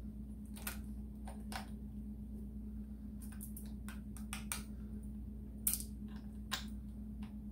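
Scattered light clicks and taps, about a dozen at uneven intervals, from hands fitting a small cable onto a motorcycle's wiring connectors, over a steady low hum. The sharpest click comes a little past halfway.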